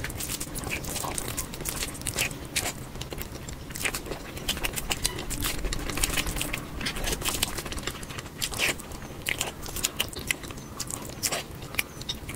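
Close-miked ASMR eating: a person chewing and biting food, a dense, irregular run of sharp mouth clicks and crunches.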